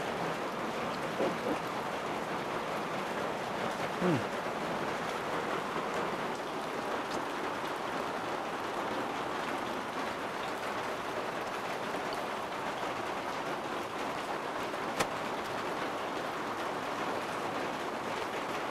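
Steady heavy rain, an even hiss of falling water throughout. A short downward-sliding sound about four seconds in and a single sharp click about three-quarters of the way through.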